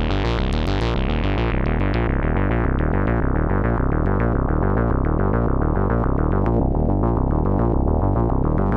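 Behringer MS-1 analog monophonic synthesizer playing a fast, repeating sequence of short notes. The sound is bright at first and grows steadily duller over the first several seconds as the filter closes down.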